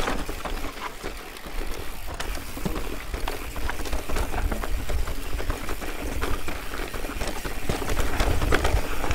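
Mountain bike clattering down a rocky trail: tyres crunching over rock and the frame rattling, with many quick clicks and knocks over a steady low rumble.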